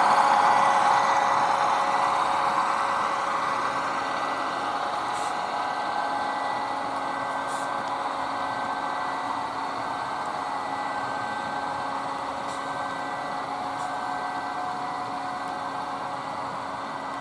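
HO scale model train running on the layout: a steady whirring with several steady hums, slowly getting quieter.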